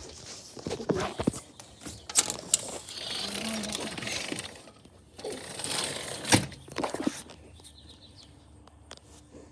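Handling noise from a phone being turned about close to its microphone: rustling with scattered knocks and clicks, the loudest knock about six seconds in.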